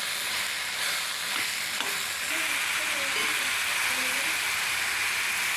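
Mushrooms frying in oil with an onion-tomato masala, sizzling steadily while a spoon stirs them through the pan, with a few light scrapes against the pan in the first two seconds. This is the first stage of cooking the mushrooms, before their water comes out.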